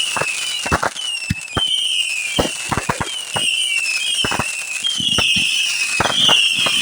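Consumer fireworks going off in quick succession: a dense run of sharp bangs and crackles, with a short high whistle about once a second.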